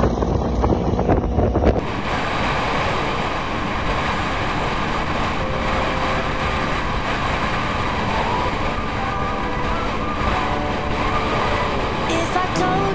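A 500cc motorcycle running at a steady cruising speed, heard from a camera mounted on the bike, with road and wind rush. The sound changes abruptly about two seconds in.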